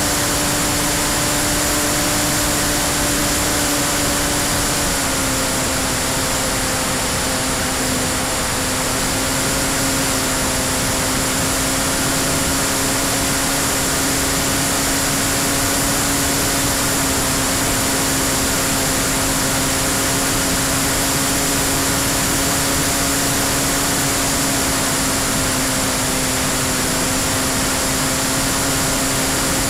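Freewing P-51D RC warbird's electric motor and propeller running at steady flight throttle, heard from an onboard camera over loud rushing airflow. The hum's pitch drops a little about five seconds in, then holds steady, with a thin high whine above it.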